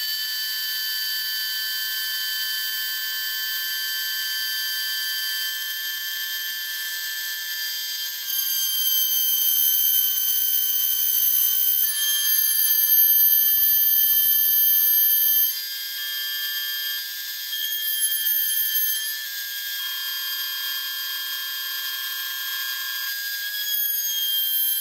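Homemade CNC router running at four times speed: a Dremel rotary tool spinning while stepper motors drive the axes, heard as a steady high whine made of several tones. The tones and loudness shift every few seconds as the machine changes its moves, louder for a stretch in the middle.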